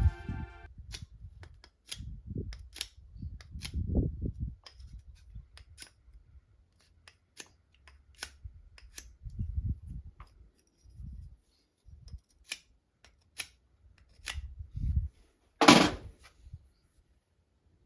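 Irregular sharp clicks and light knocks of tools and small parts being handled on a workbench, with one louder, longer scrape about 16 seconds in; no engine running.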